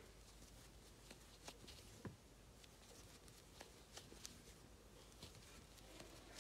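Near silence with faint, scattered soft ticks and rustles of a crochet hook and yarn as double crochet stitches are worked; the clearest tick comes about two seconds in.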